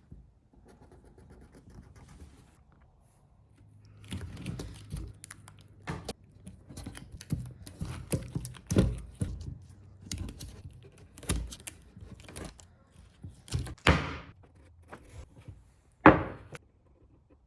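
Irregular knocks and thunks of wooden pieces being handled and set down on a workbench, starting a few seconds in, with the loudest thump near the end.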